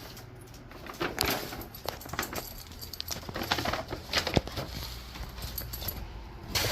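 Irregular clicks, taps and knocks of a dog playing with a ball, starting about a second in, with a few louder knocks among them.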